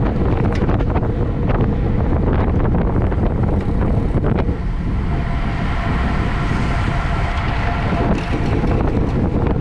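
Wind rushing and buffeting over the microphone of a camera riding along in a bicycle race, with scattered clicks. A faint steady whine comes in about halfway through.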